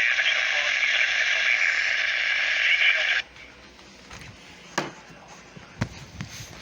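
Radio receiver static: a steady hiss that cuts off suddenly about three seconds in, leaving quiet background with a few faint clicks and knocks.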